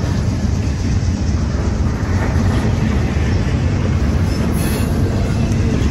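Double-stack intermodal freight train rolling past, its well cars giving a steady, loud low rumble of wheels on rail.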